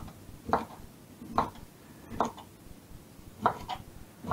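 Kitchen knife cutting through broccoli floret stalks on a wooden chopping board. Each cut ends in a short knock on the board, about six cuts at an uneven pace, two in quick succession near the end.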